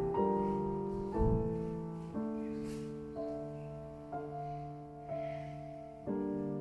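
Background music: slow piano chords, a new chord struck about once a second and left to ring and fade.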